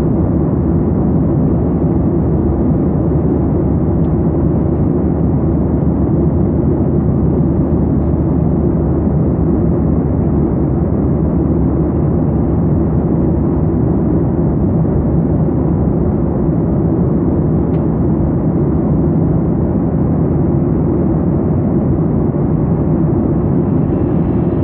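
Cabin noise of a jet airliner in cruise flight, heard from inside at a window seat: a steady, even low rumble that does not change.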